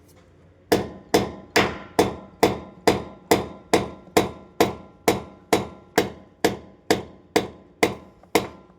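Steady hammering: a little over two blows a second, each with a short metallic ring. The hammering starts just under a second in after a brief pause.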